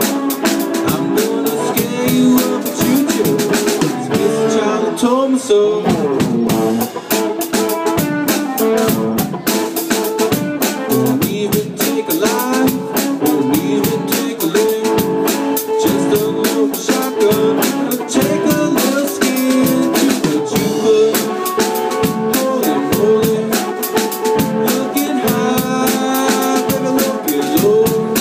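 A live band playing: electric guitar over a drum kit keeping a steady beat, with some bending guitar notes.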